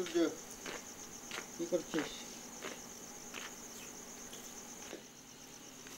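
Crickets chirring steadily in the night, a continuous pulsing high trill. Two brief louder sounds stand out, one at the start and another about two seconds in.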